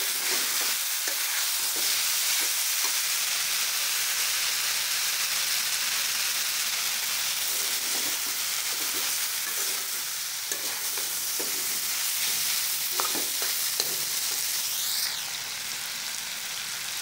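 Malabar spinach, potato, ridge gourd and dried kachki fish sizzling in hot oil in a karahi while a metal spatula stirs and scrapes them, with scattered short knocks of the spatula against the pan. The vegetables are nearly done being fried down with spices (koshano).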